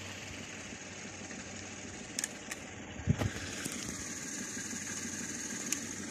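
A steady, low, engine-like drone with a hum. A few sharp clicks and one louder knock about three seconds in come as the camera is moved about.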